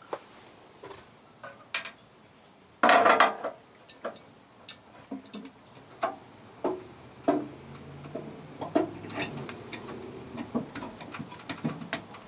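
Clicks and taps of a bracket and its screws being handled and fitted by hand, with a brief louder rattle about three seconds in.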